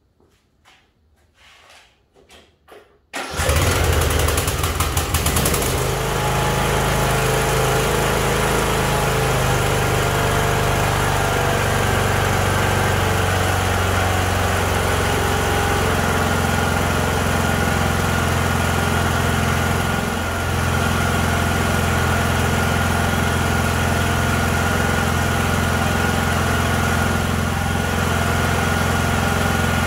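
Briggs & Stratton engine of a riding lawn mower, just rebuilt with a new head gasket, catching about three seconds in after a few faint clicks and then running steadily.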